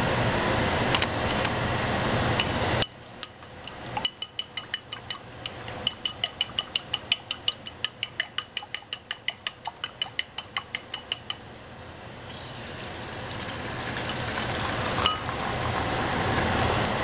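Eggs being beaten in a bowl with a utensil: a rapid, even clinking of about five strikes a second, each with a bright ring. Before it, a steady rushing noise cuts off suddenly about three seconds in, and a hiss builds up slowly again near the end.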